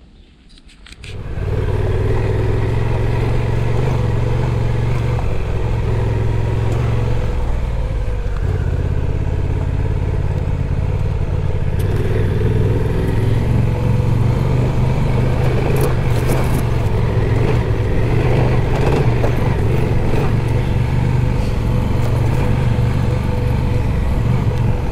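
Adventure motorcycle engine running steadily while riding a dirt trail, starting about a second in, with wind and tyre noise and a few light clatters.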